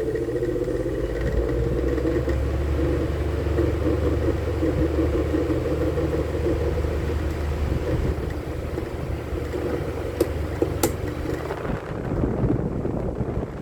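Arno electric fan motor running, rising in pitch as it comes up to speed and then humming steadily, with two sharp clicks about ten seconds in. The noise comes from play in the motor's front sleeve bushing.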